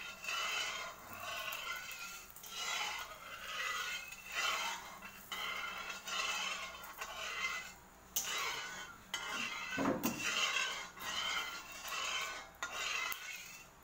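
Metal spatula scraping around the bottom of a metal wok in repeated strokes, roughly one a second, spreading cooking oil over the pan as it heats.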